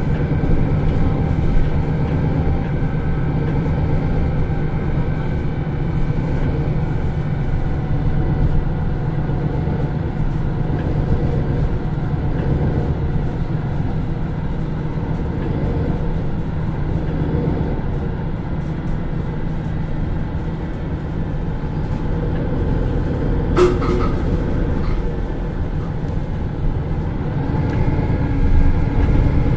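Diesel engine of a MAN NL323 Lions City Euro 6 city bus running steadily under way, heard from inside the bus as a continuous low drone with rattling cabin noise. One brief sharp knock or ding sounds late on, and the engine note grows a little near the end.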